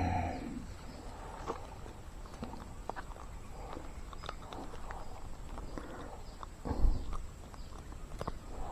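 Footsteps of a person walking at an uneven pace, a series of soft irregular thumps with a heavier one about seven seconds in.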